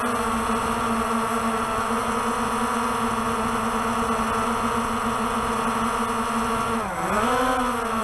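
Walkera TALI H500 hexacopter's electric rotors humming steadily at a high pitch. Near the end the pitch drops sharply and swings back up as the motors briefly slow and speed up again. A low wind rumble sits underneath.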